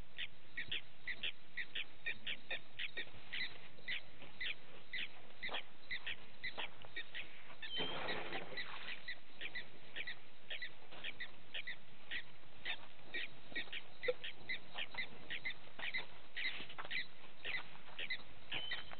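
Frogs calling at a waterhole at night: a steady run of short, sharp, high-pitched calls, about two or three a second. Around eight seconds in a broader rushing sound lasts about a second.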